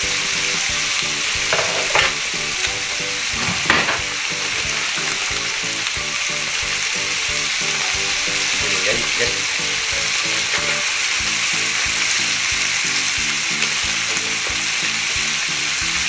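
Sliced pork belly sizzling steadily in a frying pan, cooking in its own rendered fat with no oil added. A couple of short knocks come about two and four seconds in.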